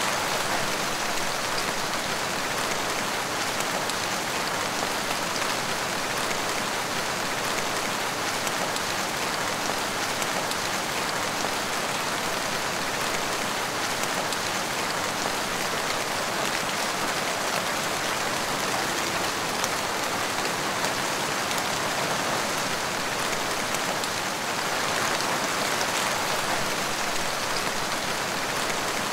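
Heavy rain falling steadily, a dense, even patter of drops that swells a little near the end.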